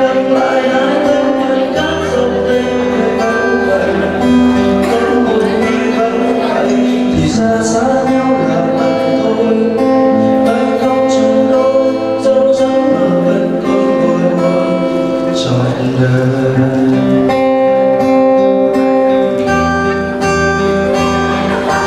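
Music led by an acoustic guitar, with a steady bass line coming in about two seconds in.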